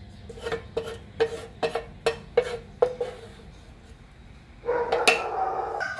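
A wooden spatula knocking and scraping against a metal frying pan, about ten quick strikes each with a short ring, as the last of the fried pork is scraped out. Near the end a rooster starts crowing and is the loudest sound.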